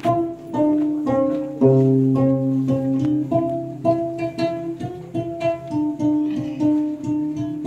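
Instrumental hymn music: a melody of distinct notes over lower held notes, with no singing.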